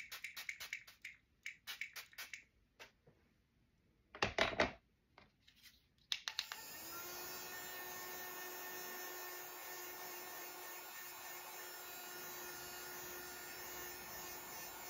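A rapid series of hissing spray pumps from a facial mist bottle, a brief loud burst about four seconds in, then a small battery handheld fan switching on about six seconds in and running steadily with a thin motor whine.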